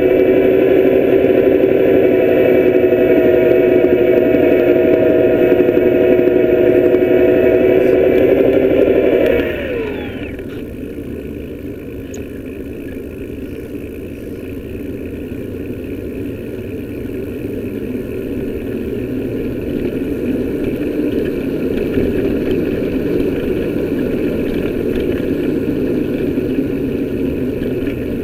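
Bafang BBS02 mid-drive e-bike motor and drivetrain running with a steady whine, which falls in pitch and drops away about nine and a half seconds in, leaving a lower, rougher running noise that slowly grows louder. A knock from the freewheel hub is at most faint here.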